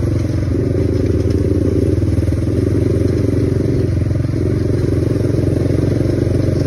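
ATV (quad bike) engine running steadily while riding along a dirt trail.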